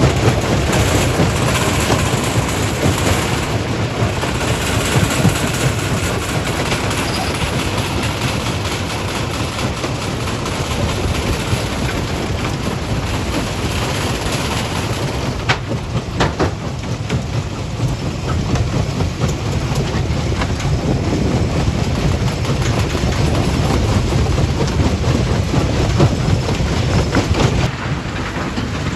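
Jaw crusher plant running: a steady, loud, clattering rumble of rock rattling through the machinery.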